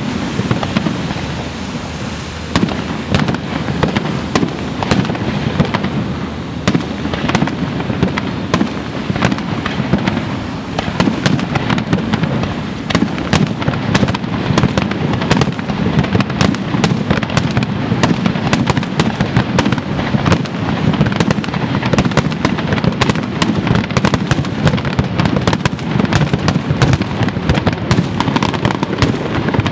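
Aerial fireworks display: shells bursting in rapid succession, a dense run of sharp cracks and pops over a continuous low rumble, with crackling stars.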